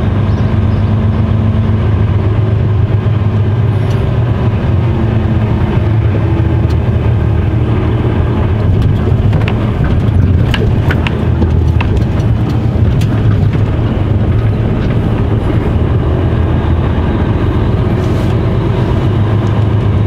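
Mercedes-Benz Actros truck's diesel engine running steadily at low speed, heard from inside the cab as a low drone, with a few light clicks about halfway through.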